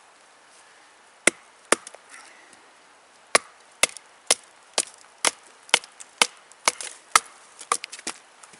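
Wooden baton striking the spine of a Bark River Sahara A2-steel knife to drive it down through a sapling and split it: about a dozen sharp wooden knocks. Two come about a second in, then after a short pause they run steadily at roughly two a second.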